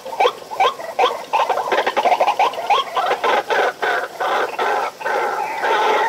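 White-breasted waterhen calling: a run of short repeated notes, two to three a second, coming faster and running together into a continuous chatter near the end.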